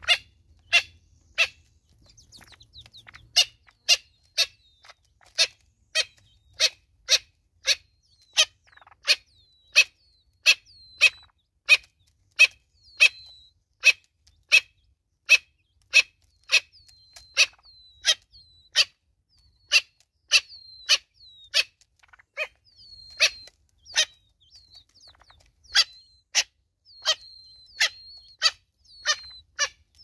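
Natal spurfowl pecking seed from a plastic bottle feeder: sharp beak taps on the plastic, about two a second with a few short pauses. Short high bird chirps sound between the taps.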